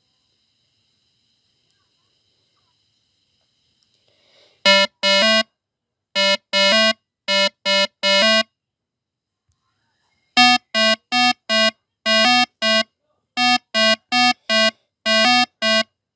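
A horn sounds many short blasts at a single steady pitch in two quick runs, with a pause of about two seconds between them. Before the blasts there is a faint high whine.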